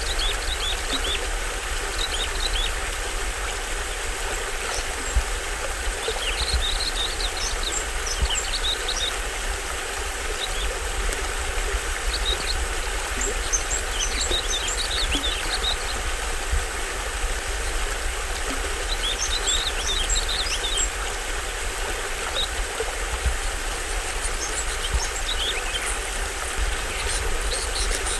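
Small stream waterfall rushing steadily, with a low rumble underneath. Birds call over it in clusters of short, high chirps every few seconds.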